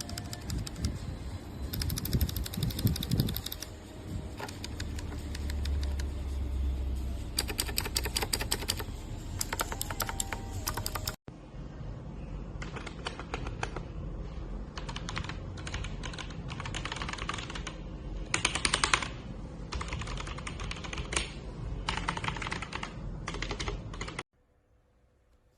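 Mechanical keyboard with Outemu switches being typed on in rapid, irregular runs of keystroke clicks. The typing breaks off about eleven seconds in and resumes with a lighter, less bassy sound, then stops a little before the end.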